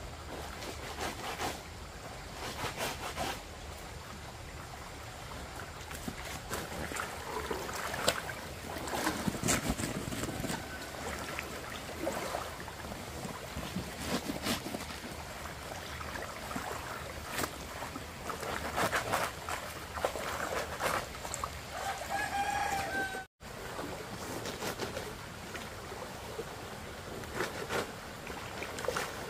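Chickens clucking, with a rooster crowing once near the end, over scattered knocks and rustling. The sound drops out for an instant shortly after the crow.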